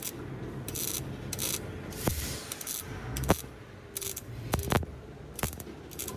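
Electric arc welder tack-welding a sheet-steel patch panel onto a car's rusted lower door: several short bursts of crackling hiss, with a few sharp clicks between them.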